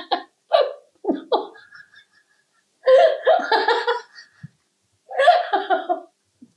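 A woman laughing in several short bursts, with silent pauses between them.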